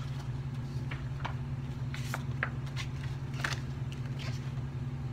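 Paper rustling and crackling in several short, sharp rustles as a hardcover book's fold-out page is opened out by hand, over a steady low hum.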